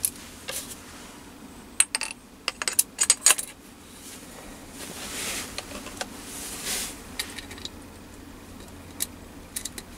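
Steel spindle shaft with a tapered roller bearing handled and slid into a bored aluminium housing: light metallic clicks and clinks, bunched about two to three seconds in and again near the end, with soft sliding rubs between.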